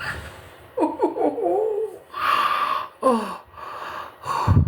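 A woman laughing and gasping with strain, a wavering vocal sound followed by a breathy exhale and a short falling cry, then a loud low thump near the end.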